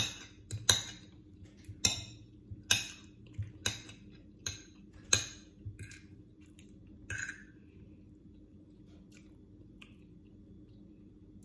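Metal fork and knife clinking and scraping against a ceramic plate while food is cut and picked up: a run of sharp, ringing clinks about once a second for the first five seconds, then a few fainter taps.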